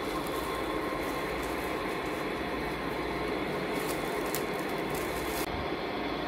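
Clear plastic wrapping crinkling as it is pulled off an artificial plant, over a steady background noise. The crinkling stops about five and a half seconds in.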